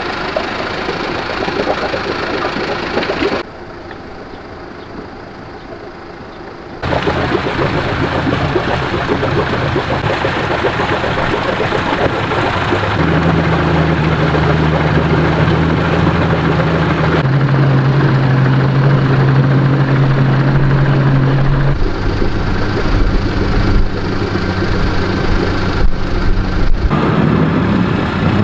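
Yamaha 50 outboard motor running, heard in several cut-together stretches, each held steady at a different engine speed. It is being run to find a whistling noise the owner complains of.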